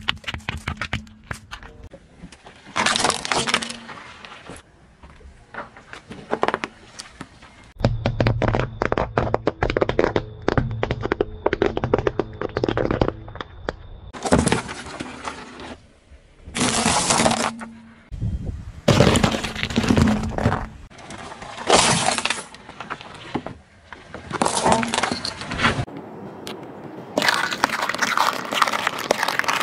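Car tyre rolling over and crushing small objects on asphalt: repeated bursts of cracking, popping and crunching with short pauses between them, including a dense run of rapid cracks.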